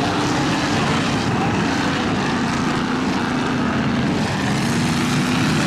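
Several race pickup trucks' engines running hard together on a dirt track, a steady mix of engine notes that rise and fall as the trucks drive past.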